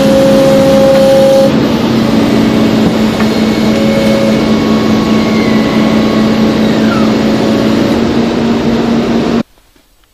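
Excavator-mounted RaMeC pile driver working a steel pile into the ground, with the excavator's engine and hydraulics running: a loud, steady machine noise with a constant low hum that cuts off suddenly about nine seconds in.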